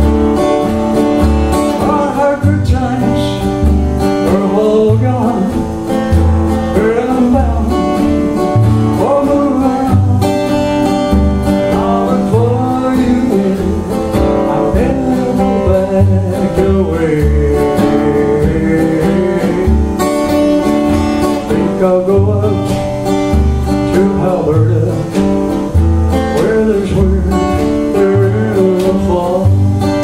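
Country-folk song played live on a strummed acoustic guitar with organ accompaniment and a steady, rhythmic bass line, with a man singing.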